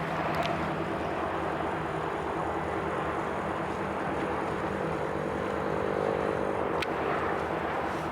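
Truck engine running steadily, with two sharp clicks, one about half a second in and one near the end.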